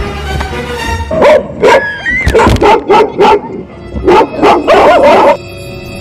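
Recorded dog barking played from a Bluetooth speaker hidden in a cardboard box: a loud run of short barks in two bunches, starting about a second in and stopping shortly before the end, over steady background music.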